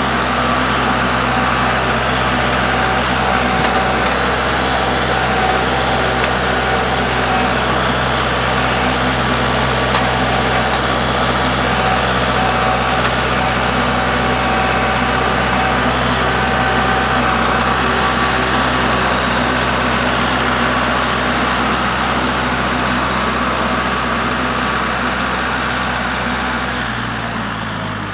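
Kubota MX5400 tractor's diesel engine running steadily at working speed; about a second before the end its note drops as the revs come down.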